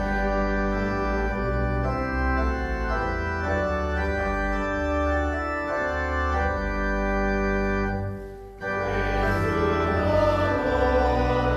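Church organ playing sustained chords over a deep pedal bass, with the chords changing every second or so. The sound stops briefly about eight seconds in, then the next phrase begins.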